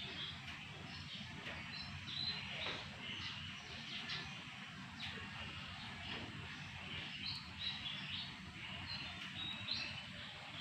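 Birds chirping: short, high calls scattered throughout, over a steady low background rumble.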